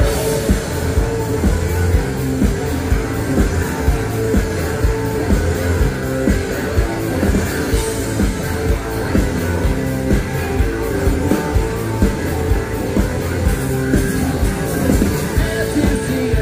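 Rock band playing live: electric guitar, bass guitar and drums, with drum hits keeping a steady beat.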